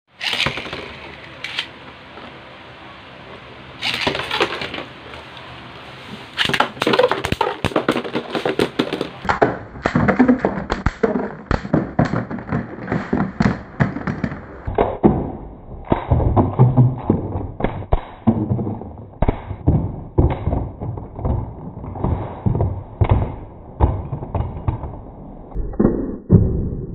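Beyblade Burst spinning tops clattering in a plastic stadium: rapid sharp clicks and knocks as the tops strike each other and the stadium walls. The audio is slowed down, so the clatter gets deeper and duller in steps as it goes on.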